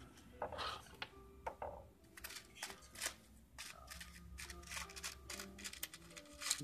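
Light, irregular clicks and taps of metal tweezers and fingers handling an LED display module, growing more frequent after about two seconds.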